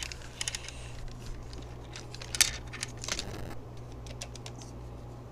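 Small clicks and light rattles of a string of beads and a thin chain being handled against a popsicle-stick swing frame, the sharpest click a little over two seconds in, over a steady low hum.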